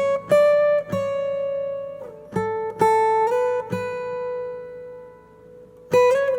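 Background music: an acoustic guitar picking a slow phrase of single notes and chords, each ringing out and fading, with a short pause before a new chord near the end.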